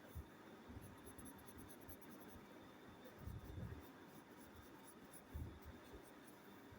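Faint scratching of a pencil on paper, with a few soft low bumps.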